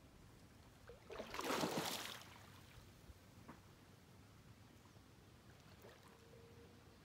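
A brief splash of water, rising and fading over about a second, starting about a second in.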